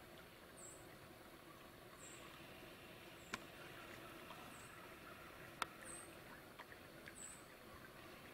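Near silence: quiet outdoor air with faint high chirps repeating about once a second, and two sharp clicks, one about three seconds in and one more than five seconds in.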